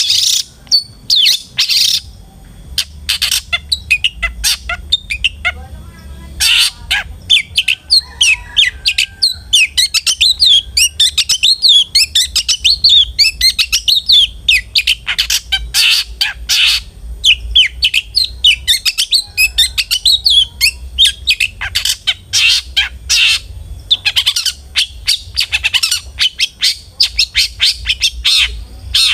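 Long-tailed shrike (cendet) singing vigorously: a fast, nearly unbroken stream of sharp, high chirps and harsh notes, with a couple of short pauses.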